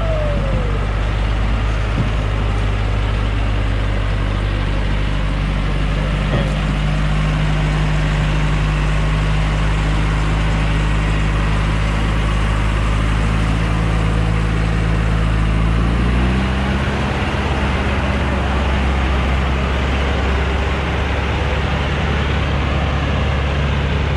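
Diesel engine of a light truck loaded with acacia logs, labouring up a steep muddy slope and running steadily under heavy load; about sixteen seconds in its pitch rises as the engine revs higher.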